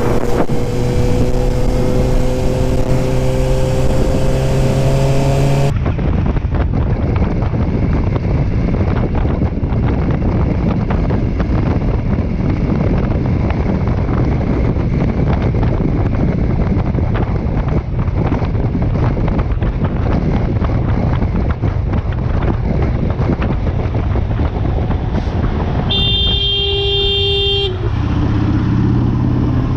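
Motorcycle riding noise from a bike-mounted camera: for the first six seconds a sport bike's engine rises slowly in pitch as it accelerates. It then cuts to a cruiser's steady engine and wind noise at highway speed. Near the end a vehicle horn sounds for about two seconds.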